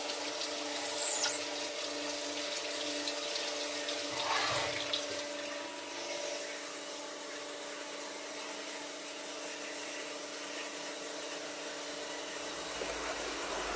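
Cutting coolant spraying in a CNC lathe, a steady rushing hiss like running water, with the machine's steady hum beneath.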